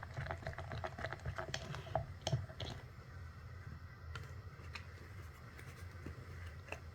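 Slime being squished and poked, giving a dense run of small clicking pops that thins to scattered single clicks after about three seconds, over a steady low hum.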